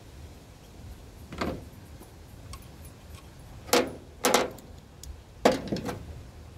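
Tools and metal parts clanking during the teardown of a small generator: a light knock about a second and a half in, two louder clanks around four seconds, and another loud clank near the end followed by a few small clicks.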